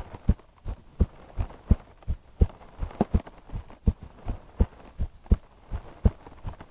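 A human heartbeat heard up close: steady double thumps, a strong beat followed by a softer one, a little over one beat a second.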